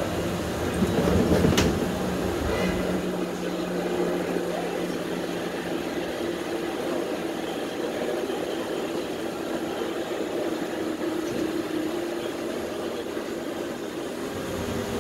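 Streetcar running on its rails, heard from inside the car: a steady rumble with a steady motor whine, and one sharp clack about a second and a half in.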